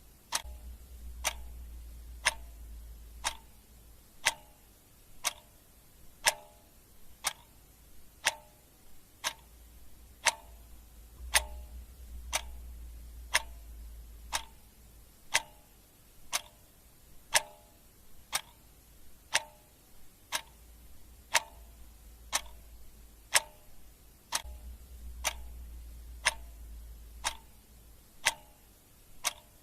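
Clock ticking steadily at about one tick a second, each tick a sharp click with a brief metallic ring, over a faint low hum.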